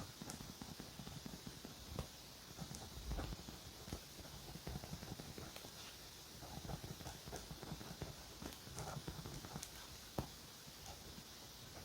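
Faint pen-and-paper sounds of journaling in a Leuchtturm A5 notebook: scratchy pen strokes and rustling on the page, broken by irregular light taps and clicks.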